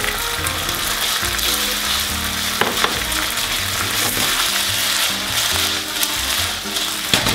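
Chicken pieces sizzling in a frying pan of red yangnyeom sauce over a gas flame as they are stirred and tossed, a steady hiss with two sharp clicks, one about two and a half seconds in and one near the end.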